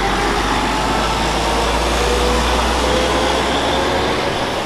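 Mercedes-Benz truck pulling two trailers passing close by: steady engine drone and tyre noise, with a faint whine that slides slightly lower. The deep rumble drops away near the end.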